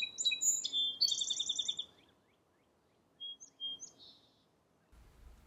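Small songbird calling: a quick run of high chirps and a short rapid trill, then a few thin chirps about three seconds in.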